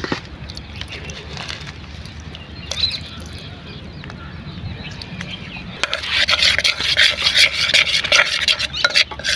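Flour, water, green chillies and coriander being mixed by hand into a batter in a steel pot. About six seconds in, rapid, loud wet rubbing and scraping against the metal begins. Before that there is a quieter stretch as water is poured in from a jug.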